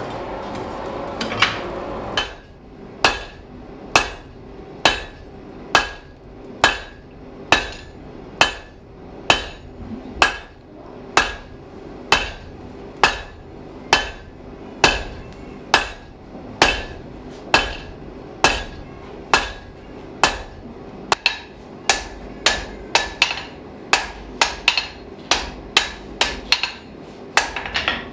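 Blacksmith's hammer striking hot round iron bar on an anvil as the bar is forged into a long nail. Steady, evenly spaced blows come a little under one a second, each with a short metallic ring, then quicken into faster, uneven blows over the last several seconds.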